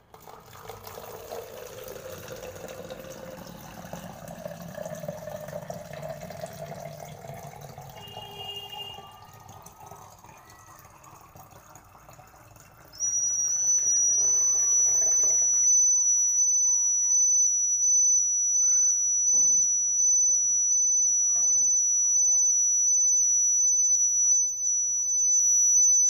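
Water poured into a plastic bottle, the pitch of the filling rising as it fills. About halfway through, a piezo buzzer starts a loud, steady, high-pitched tone: the water-level alarm sounding as the water reaches the top probe. The pouring stops a few seconds after the buzzer starts.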